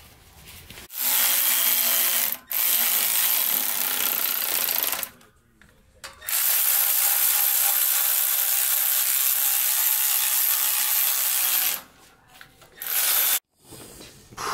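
Cordless ratchet running down the bolts on a limited-slip differential case in four runs: two short ones, one of about five seconds, then a brief final burst.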